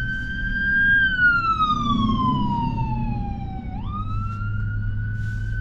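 Ambulance siren wailing, heard from inside a car: the tone slides slowly down for about three seconds, then jumps back up just before four seconds in and climbs high again. Low road rumble sits underneath.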